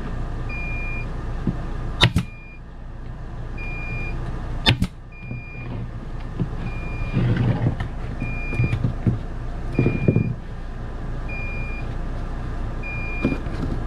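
A short, high electronic beep repeats about every one and a half seconds over a steady low hum. Two sharp clacks come about two seconds and about five seconds in, and there is some rubbing and knocking of hands working around seven and ten seconds in.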